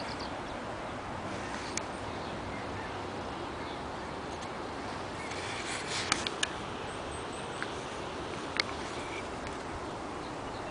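Steady outdoor background noise by a river, an even rushing hiss with no clear source, broken by a few sharp clicks, several close together about six seconds in, and faint high chirps shortly after.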